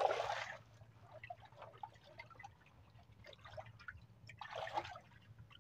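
Water splashing and dripping: a splash at the start and another about four and a half seconds in, with small drips and patters between.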